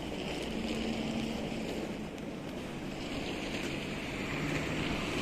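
Steady outdoor background noise with a faint low hum.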